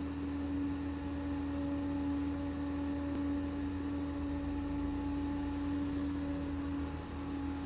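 A steady, unchanging hum: one low pitched tone with fainter overtones above it and a deeper hum beneath.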